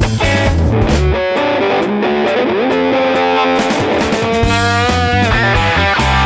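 Background rock music led by a distorted electric guitar; the low bass drops away about a second in and comes back near the end.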